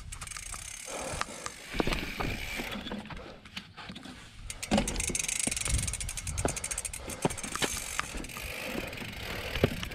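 Mountain bike rolling down bare rock, with knocks and rattles from the wheels and frame over the bumps. From about four and a half seconds in there is a rapid, even ticking from the rear freehub as the bike coasts.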